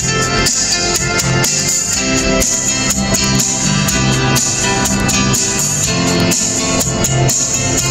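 Background music with a steady beat and instruments, laid over the video.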